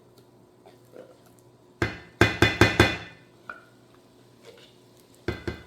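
Sharp metallic knocks, each with a brief ring: a quick run of about five about two seconds in, then two more near the end. They come from a can of refried beans being knocked against the cookware to empty it.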